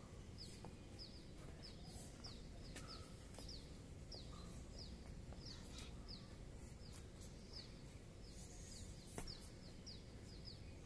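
A bird calling faintly over and over, a short falling chirp about twice a second, over low steady background noise. A single faint tap about nine seconds in.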